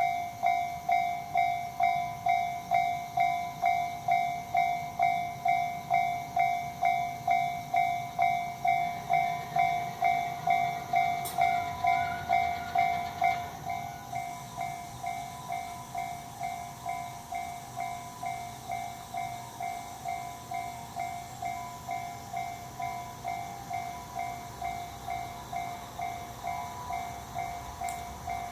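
Japanese railroad crossing warning bell starting suddenly and ringing in an even repeating ding at about two strikes a second, the signal that a train is approaching. About halfway through it drops to a quieter level and keeps ringing.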